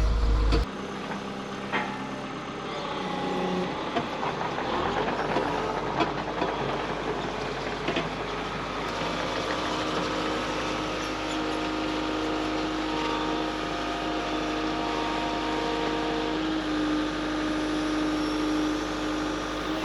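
A heavy vehicle's engine running steadily, with scattered clanks and knocks.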